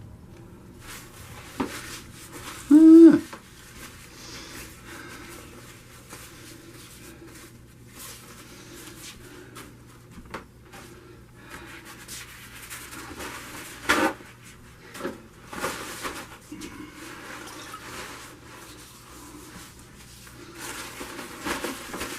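Quiet room noise with a faint steady hum, scattered light knocks and rustles from handling, a short hummed vocal sound about three seconds in, and a sharp knock about fourteen seconds in.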